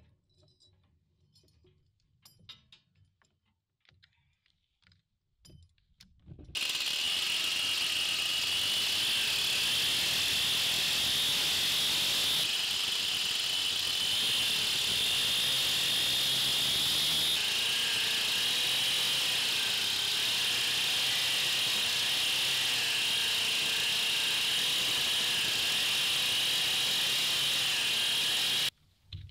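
Stihl chainsaw running at high revs while cutting a wooden post, its pitch wavering slightly under load. It comes in suddenly about six seconds in and cuts off suddenly near the end, after a few quiet seconds of faint clinks.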